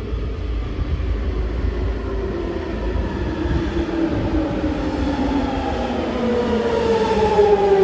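A London Underground Jubilee line train (1996 Stock) arriving through the tunnel, its motor whine falling in pitch as it slows. The whine has several stacked tones over a low rumble and grows louder toward the end as the train nears the platform.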